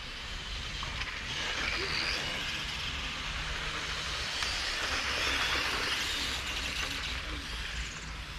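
Electric 1/10-scale Tamiya M-chassis RC cars running on an asphalt track, a high whine of motors and tyres that swells from about a second in, is loudest past the middle, then eases off.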